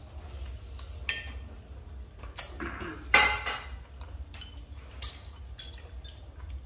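Tableware clinking: spoons, a ladle and ceramic bowls knocking against each other and a metal hotpot, a handful of separate clinks with the loudest and most ringing one about three seconds in.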